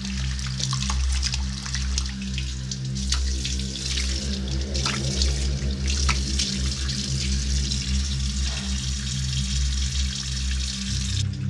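Bathroom sink faucet running, with hands being washed and rubbed under the stream and water splashing into the basin. The water cuts off just before the end. A steady low drone of background music runs underneath.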